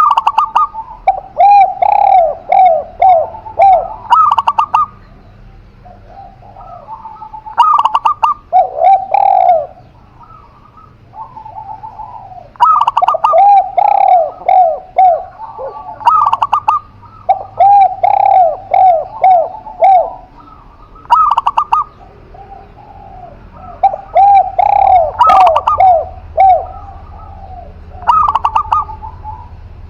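Doves cooing in repeated phrases: each starts on a higher note and runs into a quick string of short, lower coos, sung in bouts with short pauses between them.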